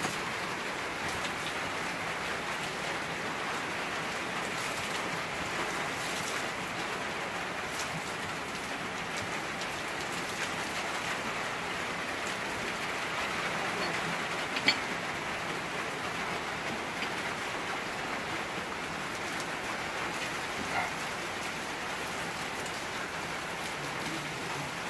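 Steady splashing of falling water, with a single sharp click about 15 seconds in.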